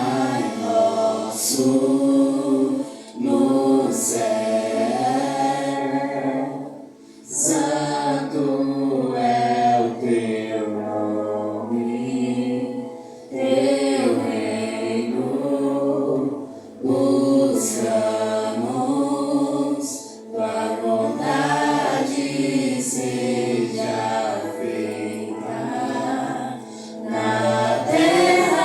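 A group of voices singing a slow worship song in sung phrases with short breaths between them, over a steady, sustained low accompaniment.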